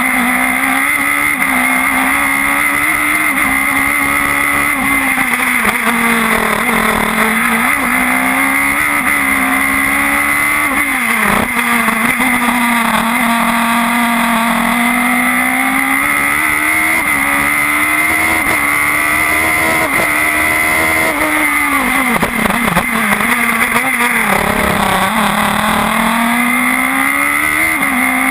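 Onboard sound of a Radical SR4 racing car's engine at speed, its pitch climbing and dropping repeatedly as it is driven through the gears. Sharp falls in pitch about 11 seconds in and again near 24 seconds mark braking and downshifting into corners, under steady wind noise on the microphone.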